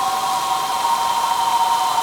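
Dark ambience sound-effect mix: a steady rain-like hiss with a sustained eerie tone held over it, slowly wavering in pitch.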